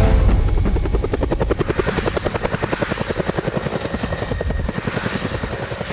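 Helicopter in flight, its two-bladed main rotor beating in a rapid, steady chop that slowly fades.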